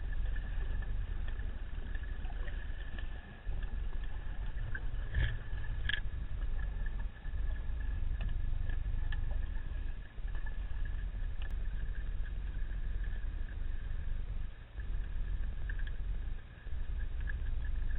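Underwater ambient noise: a steady low rumble with a thin, constant whine above it. The rumble dips briefly every few seconds, and a few faint clicks come through.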